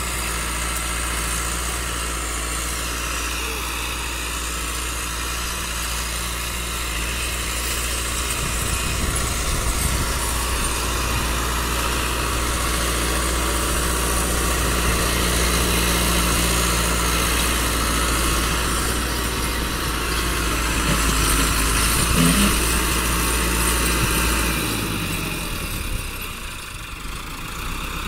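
Massey Ferguson 385 tractor's diesel engine running steadily while it pulls a tine cultivator through tilled soil, the sound dropping a little near the end.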